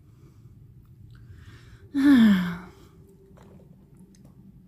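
A person sighs once aloud about two seconds in, the voice falling in pitch, over a faint steady hum.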